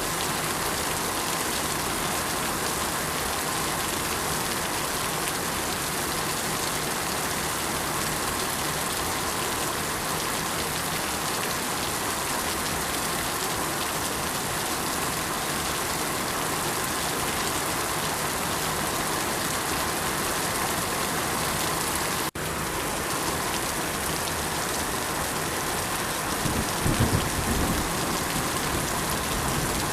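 Steady rain falling on surfaces, an even hiss that cuts out for an instant about two-thirds through. A short low rumble rises over it near the end.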